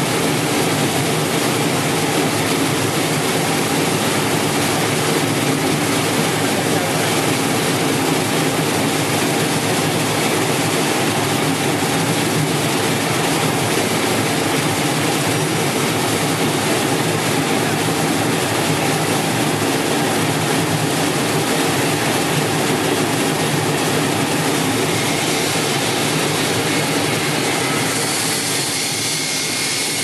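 QX-608 brush-roller potato peeling and washing machine running steadily: its six brush rollers turn and scrub a load of potatoes that tumble against the bristles under the water spray. It is a loud, continuous whirring wash.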